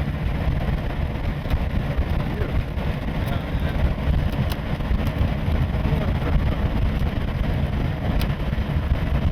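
A vehicle driving: a steady low engine-and-road rumble with a noise haze over it.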